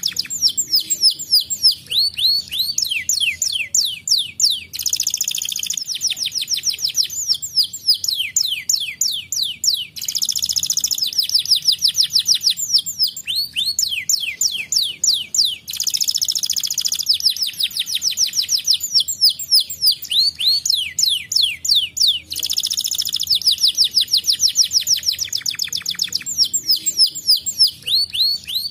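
Domestic canary singing a long, unbroken song of rapid trills: runs of quick falling notes, many per second, broken every five or six seconds by denser buzzing rolls.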